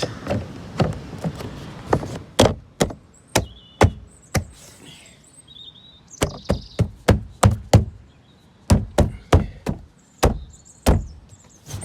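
Sharp plastic clicks and knocks from a BMW window switch unit being handled and worked apart, in irregular runs of taps, some several to a second.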